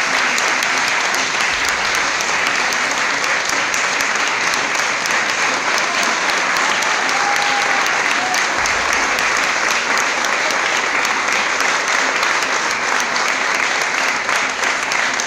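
An audience applauding, steady dense clapping.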